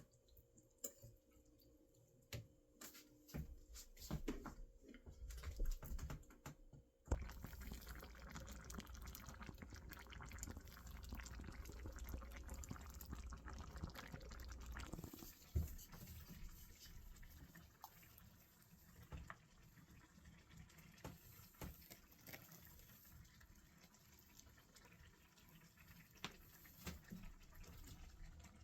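Water running for several seconds, with scattered light clicks and knocks before and after it.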